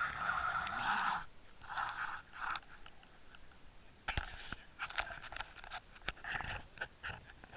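Water rushing over a waterproof camera housing as it is hauled up on a fishing line: a steady muffled hiss that breaks off about a second in, then two shorter rushes. After that come scattered clicks, knocks and scrapes as the housing is handled on a boat deck.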